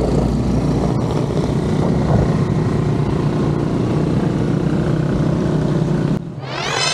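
Road traffic noise from a moving bicycle, with a steady engine hum from nearby motor vehicles. About six seconds in it cuts off abruptly and music with rising sweeping tones begins.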